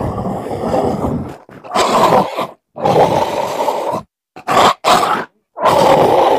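A string of about six large-animal calls, each starting and stopping abruptly with complete silence between them; the longer ones last about a second.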